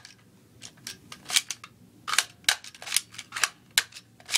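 A Nerf Reflex toy blaster being worked by hand: about a dozen sharp plastic clicks and snaps, irregularly spaced, as its mechanism is primed and triggered.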